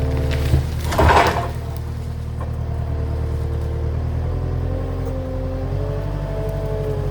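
Skid steer engine running hard while it tries to lift a large red oak log, too heavy for it to raise. A short, loud burst of rushing noise comes about a second in, and the engine's pitch rises a little about halfway through.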